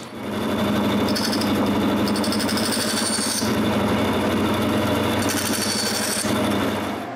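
Electric power saw running and cutting wood: a steady motor hum with rough cutting noise that comes and goes in stretches as the blade bites. It starts right away and winds down near the end.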